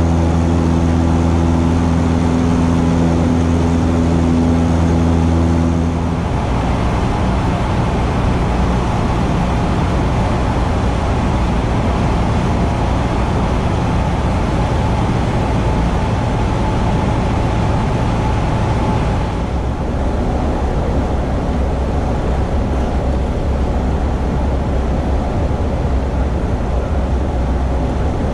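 Cessna 172's piston engine and propeller droning steadily, with a strong even hum on the climb-out. About six seconds in it switches abruptly to a rougher, less tonal drone, and near two-thirds through it shifts again, slightly quieter, as on the landing.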